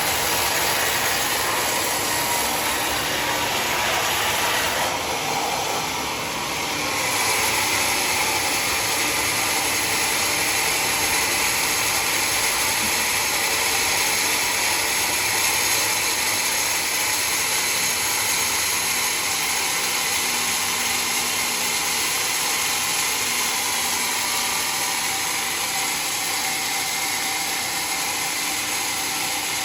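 Sawmill running: a loud, steady machine noise, dipping briefly about five seconds in and then carrying on.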